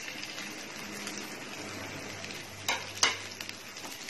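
Chopped onion sizzling as it goes into hot oil in a steel pan and is stirred, an even frying hiss. Two sharp knocks against the pan come about three seconds in, the second louder.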